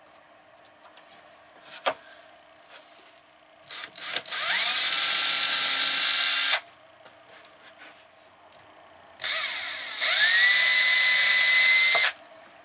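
Cordless drill running in two bursts, about two and nearly three seconds long, its whine rising as it spins up and then holding steady, as it drills into the cabinet where a door hinge is being mounted. A few short trigger blips come just before the first burst.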